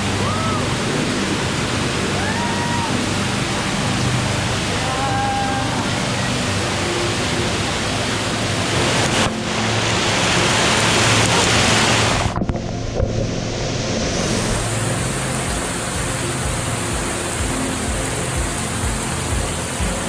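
Waterfall pouring, a loud steady rush of falling water, muffled for a moment about twelve seconds in. Background music runs faintly underneath.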